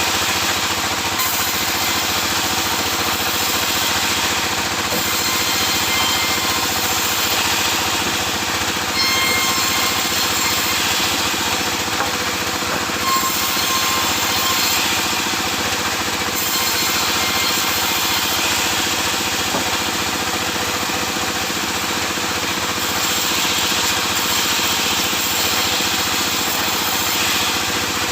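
Sawmill saw machinery running steadily while sawing sengon laut logs: a continuous mechanical drone under a dense hiss, with no pauses.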